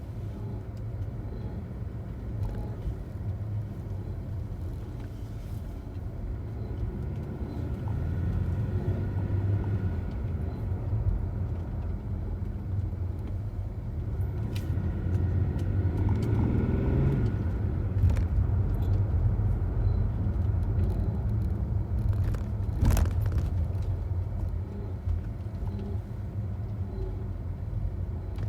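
BMW 730d's straight-six diesel engine running steadily, with a weird scratching noise the owner says is there all the time and does not sound right. A couple of sharp clicks stand out, the clearest about four-fifths of the way through.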